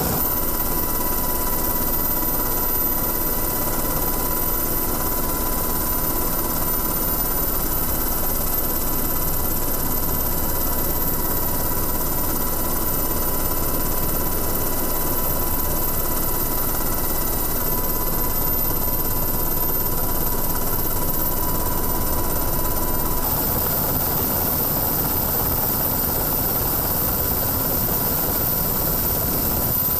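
Steady engine and rotor noise of the aircraft filming from above, a constant drone with a thin steady whine over it. The noise shifts slightly about three-quarters of the way through.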